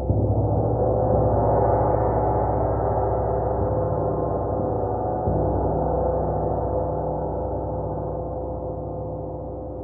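Gong struck, its many overlapping tones building for a couple of seconds and sustaining. It is struck again about five seconds in, then slowly dies away.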